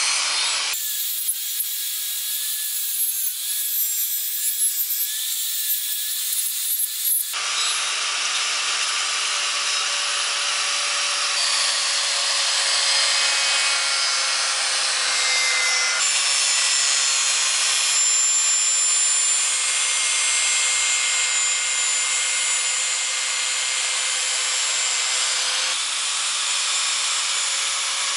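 Angle grinder fitted with a wire cup brush, running against a bicycle frame tube to strip paint and rust, with a steady motor whine under the scraping. The sound shifts abruptly a few times.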